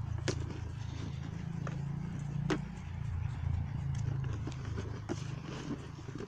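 Several sheep crunching and chewing pieces of dry feed off the grass, with scattered crisp clicks, over a low steady rumble.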